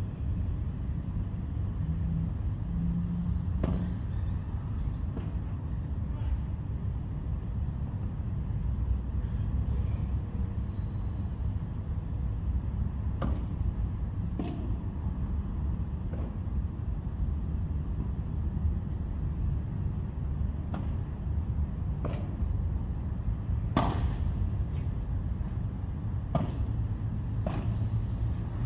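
Padel rally: short, sharp hits of rackets on the ball every second or two, one of them louder about two-thirds of the way through. Under the hits run a steady low rumble and a constant high-pitched whine.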